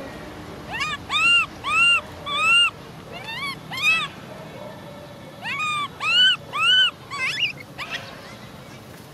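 Baby macaque giving about a dozen short, high-pitched coo calls, each rising then falling in pitch, in two runs with a short pause between them.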